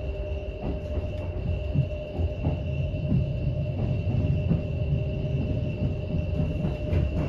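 Interior sound of an electric multiple-unit passenger train running along the line: a steady low rumble of wheels on rail with a constant whine above it, and irregular clicks and knocks from the wheels passing over the track.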